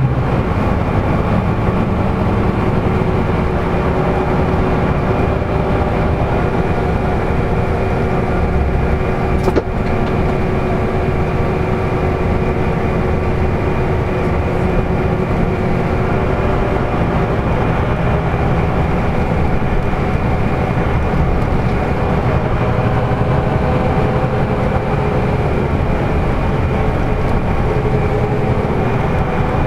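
Inside a LiAZ-5250 intercity bus cruising on a highway: the steady drone of its diesel engine and drivetrain with road noise, and one brief click about ten seconds in.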